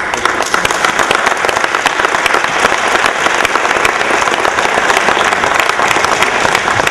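Audience applauding: many hands clapping together, starting suddenly and holding steady.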